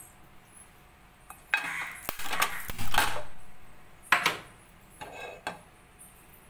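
A nonstick pan clattering and scraping against a gas stove's metal grate, followed by a sharp click a little after the clatter and a couple of lighter knocks.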